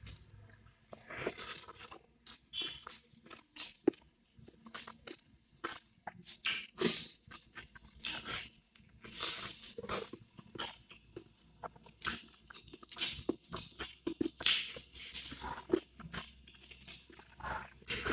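Close-miked eating: soft, irregular crunching and chewing with scattered bites and mouth smacks.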